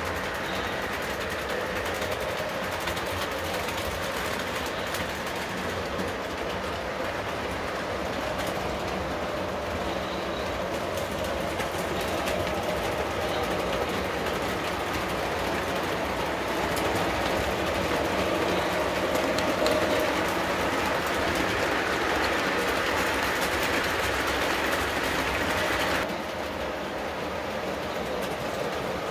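Lionel GG1 model train with freight cars running on layout track: a steady rolling clatter of wheels over the rails. It grows louder as the train comes close, then drops abruptly a few seconds before the end.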